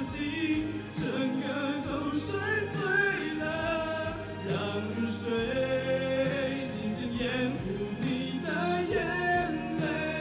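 A young man singing into a handheld microphone over instrumental accompaniment, his voice gliding between held notes.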